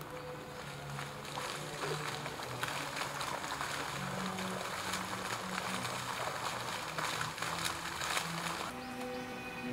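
Steady rushing, splashing water over soft background music with sustained low notes; the water sound cuts off abruptly near the end, leaving only the music.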